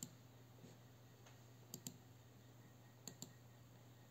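Faint computer clicks, a pointer button pressed and released. There is one click at the start, then two quick double clicks about a second and a half apart. A faint steady low hum runs underneath.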